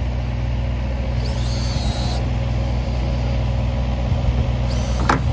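An engine idling steadily with a low drone. A short high whine comes about a second in and lasts about a second, and there is one sharp knock near the end.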